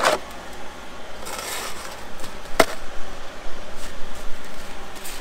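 Handling noises with the electric chainsaw not running: rustling, and a sharp click about two and a half seconds in.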